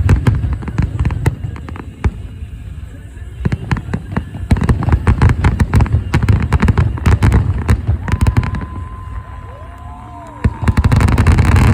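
Fireworks going off in quick succession: dense crackling pops over deep booms. They thin out about two-thirds of the way in, where a steady high tone and a short rising-and-falling whistle are heard, then a loud barrage of pops and booms starts again near the end.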